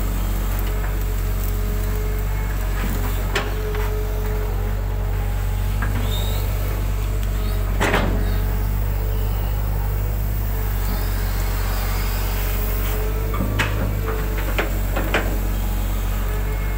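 Hitachi hydraulic excavator's diesel engine running steadily with a low drone and a steady higher hum, heard from the operator's cab. Over it come about five sharp knocks and clanks from the bucket and boom as it digs mud out of the ditch, the loudest about eight seconds in.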